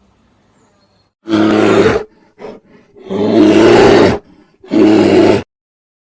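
Tiger roaring loudly three times, the middle roar the longest, with a short weaker grunt between the first two.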